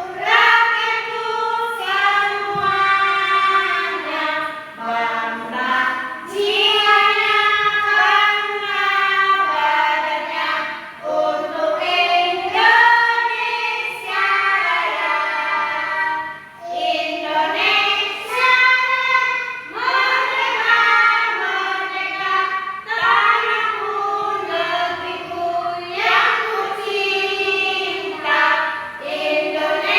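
A group of children singing a song together, in phrases a few seconds long with held notes.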